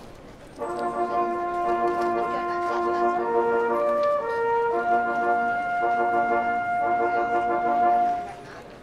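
Brass ensemble music: several horns playing together in chords, mixing quick repeated notes with long held notes. It breaks off briefly at the start and again near the end.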